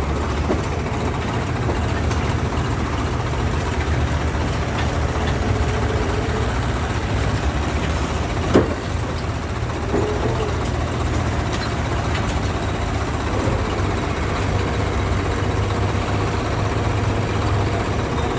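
Heavy diesel machinery, a backhoe loader and tractor, running steadily with a low, even engine beat. A single sharp knock comes about eight and a half seconds in.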